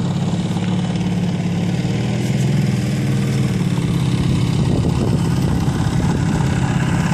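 Outboard motor of a small lagoon boat running steadily under way, a constant engine drone.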